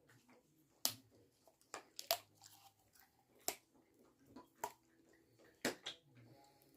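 A dog chewing on a chew: sharp crunches and cracks at irregular intervals, roughly one a second, with softer gnawing clicks between.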